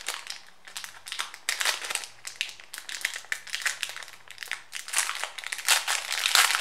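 Plastic packaging crinkling and rustling in irregular bursts as it is opened by hand. It is busiest and loudest near the end.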